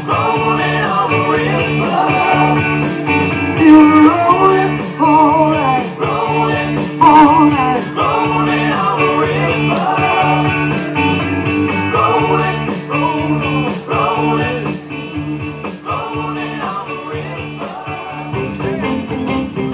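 Live band music through a PA: a blues-rock instrumental passage with a wavering guitar lead over held chords and bass, a little quieter in the last few seconds.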